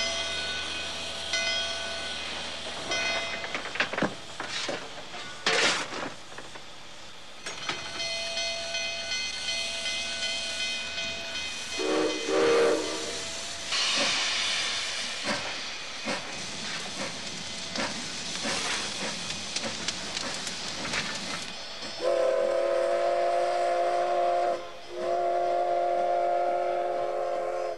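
Steam locomotive: the bell rings with a repeated stroke, then steam hisses and the exhaust gives a few sharp chuffs. A short whistle note comes about halfway, and near the end the steam whistle blows loudly, sounding a chord of several notes, broken once briefly.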